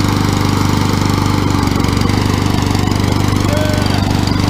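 Small lawn mower engine running at a steady speed, with an even, unchanging note.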